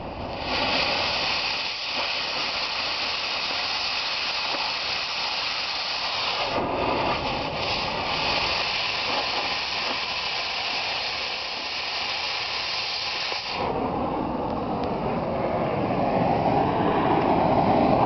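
Oxy-acetylene cutting torch hissing steadily as it cuts into a steel backhoe bucket tooth, throwing sparks. About thirteen seconds in the high hiss stops and a lower, rougher rushing of the torch flame takes over, growing louder toward the end.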